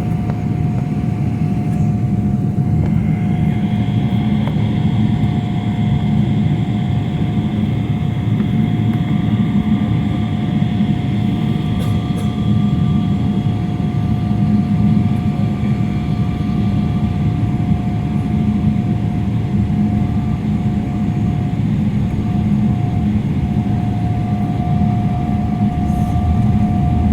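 Steady cabin noise of an airliner on the ground before takeoff: a heavy low rumble with a steady engine whine, and higher whines joining about three seconds in.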